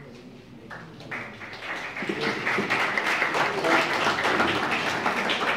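Audience clapping, a few scattered claps at first, then swelling into steady applause about two seconds in.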